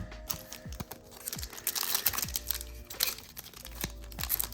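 Crinkling of a foil Pokémon booster-pack wrapper as a pack and its cards are handled, a dense run of small crackles that gets busier about halfway through.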